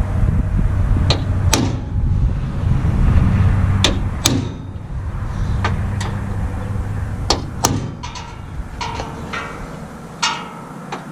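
A power drill runs under load, drilling out sheet-metal spot welds with a low, steady rumble that stops about ten seconds in. Sharp metallic clinks and taps ring out over it every second or so.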